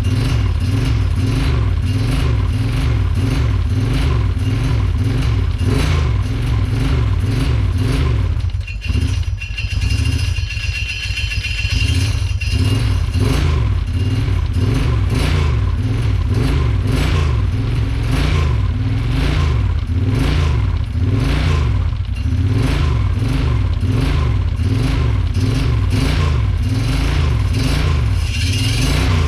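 Kawasaki Brute Force 750's V-twin engine running freshly rebuilt and warming up, its revs rising and falling over and over, with a brief drop about a third of the way through. A loose plate on the ATV rattles along with the engine.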